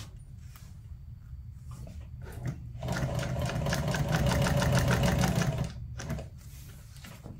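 Industrial sewing machine stitching a foam-backed vinyl seat panel. The motor hums, and about three seconds in a run of rapid, even stitching lasts roughly three seconds and then stops, followed by a click or two.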